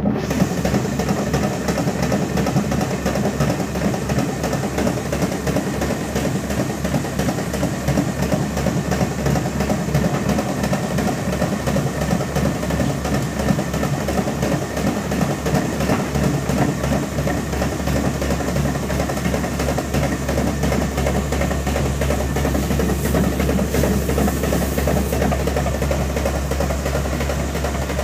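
Feed mill running steadily as it grinds grain into coarse meal, a continuous mechanical din with a low hum that pulses rapidly and then evens out about two-thirds of the way through.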